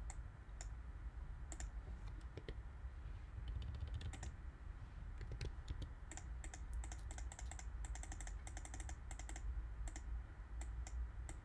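Computer keys being pressed and clicked in irregular runs of short, light taps, thickest in the second half, over a faint low hum.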